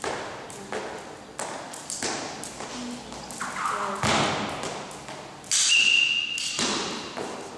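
Skipping rope striking a hard sports-hall floor and trainers landing, in irregular hits during a freestyle jump-rope routine, with a loud knock about two thirds of the way in followed by a short high squeak.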